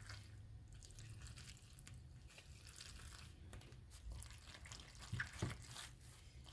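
A fork stirring macaroni and cheese in a microwave cup: faint wet, sticky scraping with scattered light clicks, and two sharper clinks a little after five seconds in, over a steady low hum.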